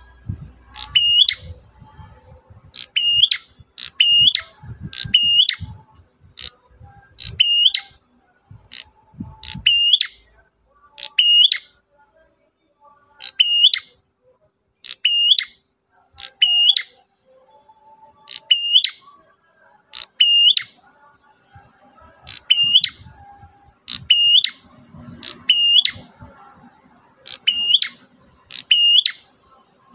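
Prenjak merah (a prinia) calling: a long series of short, high, sharp notes, mostly about one a second with occasional gaps of two seconds or so, each note dropping steeply in pitch and ending in a brief hooked tail. A low rumble runs underneath for about the first ten seconds.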